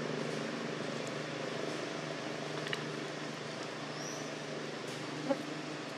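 Steady engine hum, as of a motor vehicle running. About four seconds in there is a short high chirp, and a brief sharp knock just after five seconds.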